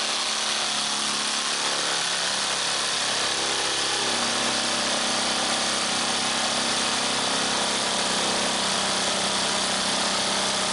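Jigsaw attachment on a drill running steadily as its blade saws through a wooden 2x4.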